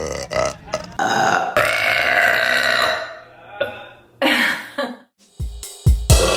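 Women burping: a long, drawn-out burp starts about a second in and lasts about two seconds, then a shorter burp comes a little after four seconds. Electronic music with a heavy beat starts near the end.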